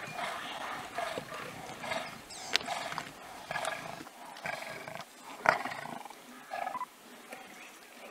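A pride of lions, lionesses and half-grown cubs, growling and snarling in short bursts as they feed on a young giraffe carcass. Sharp clicks and cracks of chewing come in between, the loudest about halfway through, and the sounds thin out near the end.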